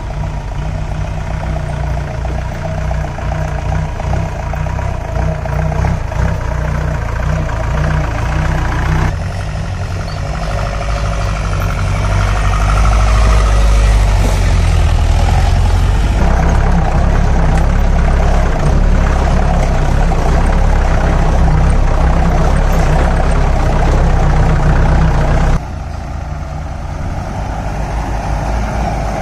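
4×4 jeep engine running as the vehicle drives over rough ground, a steady low drone that grows louder partway through. The sound drops suddenly near the end.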